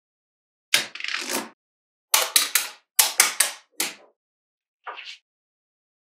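Magnetic balls clicking and rattling against each other as a sheet of them is slid off a card and snapped onto the model, in five short bursts of sharp clicks with silence between.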